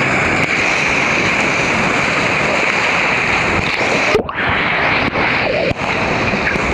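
Whitewater rapid rushing loudly and steadily: river water churning through a rafting rapid's hole.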